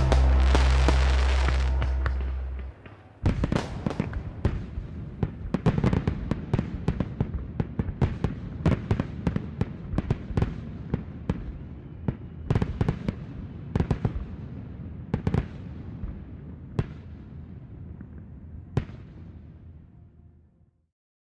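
Background music ends on a held low chord about three seconds in. A long run of irregular sharp pops and crackles follows, thinning out and fading away near the end.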